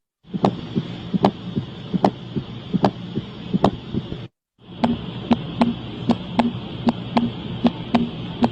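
Recorded heart sounds played as teaching examples: a regular rhythm of sharp clicking beats over a steady low rumble and hiss. They come as two separate clips split by a brief silence about four seconds in, and the beats in the second clip are faster.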